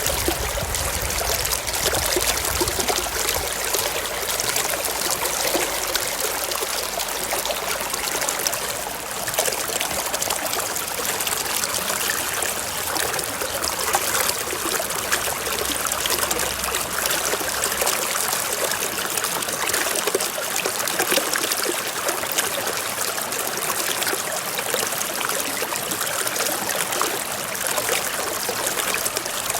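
Mountain stream flowing over rocks: a steady trickling, splashing rush of water.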